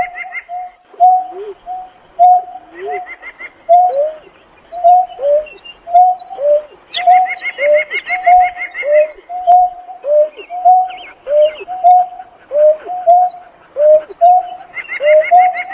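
Greater painted-snipe calling: a long, even series of short hoots, each dipping slightly in pitch, about two a second. Bursts of a rapid, higher trill come in three times behind the hoots.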